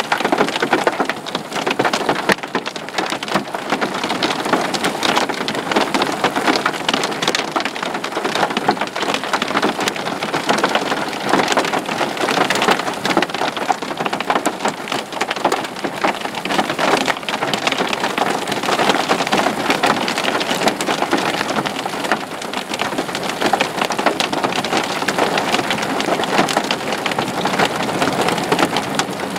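Dime- to penny-size hail falling hard, a dense, continuous patter of tiny hits that stays steady throughout.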